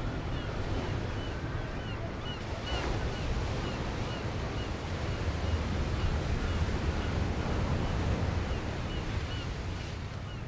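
Ocean surf breaking on the shore: a steady low rumble of waves that builds in the middle and eases near the end. A short high chirp repeats about twice a second over it.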